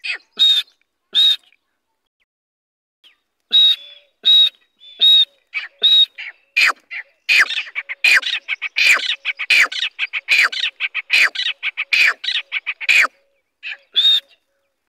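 Young francolin (teetar) chicks calling: a string of short, sharp chirps and squeaks, some with a high whistled note, coming thick and fast through the middle after a pause of about two seconds near the start, with two last calls near the end.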